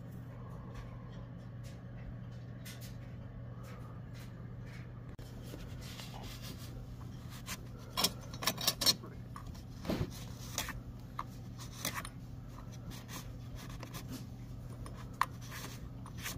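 Cloth rubbing and scrubbing over the oily clutch side of a chainsaw around the crankshaft, wiping off grime before the clutch goes back on. The rubbing comes in short bursts from about halfway, loudest just after halfway, over a steady low hum.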